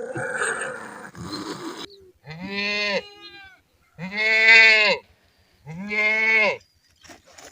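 Goat bleating three times, each call under a second long with a steady pitch that drops at the end; the middle call is the loudest and longest. A short stretch of rough noise comes before the first bleat.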